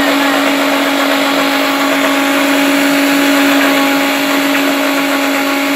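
Electric mixer grinder running at full speed, grinding pomegranate arils with milk into juice. It runs loud and steady throughout, a constant motor hum under a dense whirring hiss.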